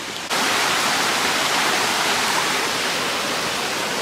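Rushing water of a small stream: a steady hiss that cuts in suddenly a fraction of a second in.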